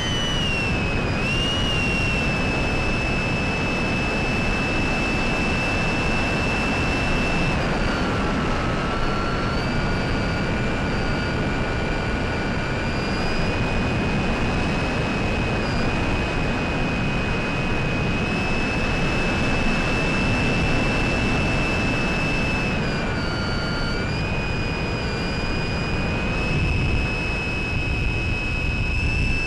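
Electric pusher motor of a Mini Talon FPV plane (SunnySky 1240 kV brushless motor with an 8x6 propeller), heard from on board in flight: a steady high whine over rushing wind noise. The whine drops in pitch about a quarter of the way in as the throttle is eased, and dips briefly again later on.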